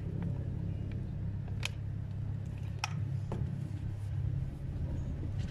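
Steady low rumble, with a few sharp clicks and crackles from a plastic squeeze bottle of fabric dye being squeezed onto a tied shirt.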